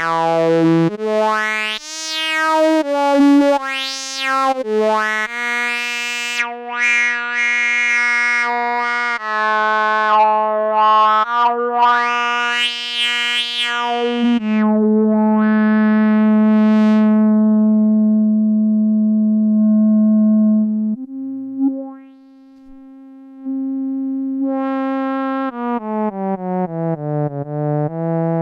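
Yamaha SY-2 vintage synthesizer (about 1971) playing single notes one at a time. Through the middle, the filter sweeps make the notes brighten and dull. Then a long low note is held, and near the end a quick run of falling notes follows; the synth is out of tune.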